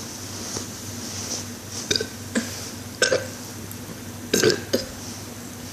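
A person's small, short burps, about six in a row, forced out to ease an upset stomach; the longest and loudest comes about four and a half seconds in.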